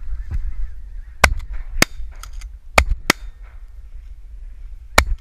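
Shotgun volley at a passing flock of geese: five loud shots over about four seconds from more than one gun, with geese honking and wind rumble in between.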